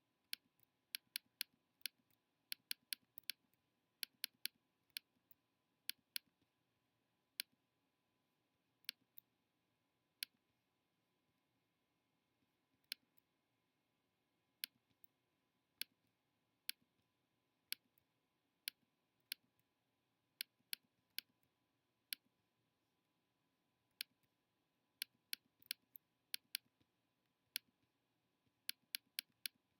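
Computer mouse clicking: sharp single clicks at irregular intervals, sometimes several in quick succession, with gaps of a second or more between runs.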